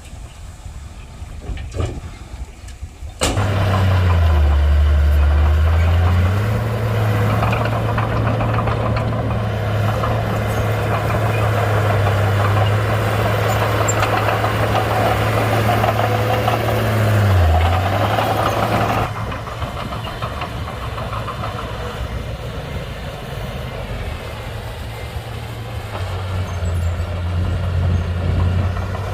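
Komatsu D31-P bulldozer's diesel engine working with a low, steady engine note. It jumps sharply louder about three seconds in, sags briefly in pitch twice, and drops back to a quieter level about two-thirds of the way through.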